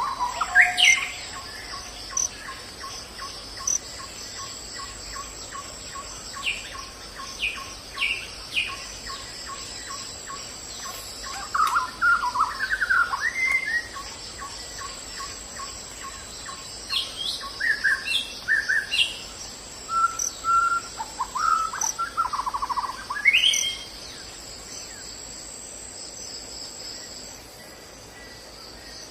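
Wild birds calling in the forest: scattered short rising chirps and quick trills, busiest in the middle and toward the end, over a continuous high-pitched insect buzz and a steady ticking call through the first two-thirds.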